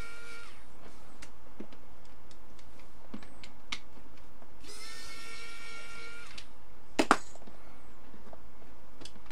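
Small cordless electric screwdriver whirring twice as it backs screws out of the base of a plastic wireless charger: a short burst at the start and a longer one of about two seconds about five seconds in. A few light ticks and one sharp click about seven seconds in, from the screws and the plastic parts being handled.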